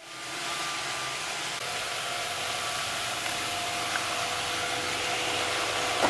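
Roomba robotic vacuum cleaner running: a steady whirring hiss of its motor and brushes with a faint whine through it, fading in at the start.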